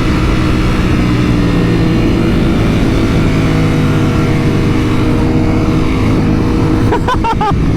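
Motorcycle engine running at steady revs while riding, with wind rumble on the helmet-mounted camera microphone.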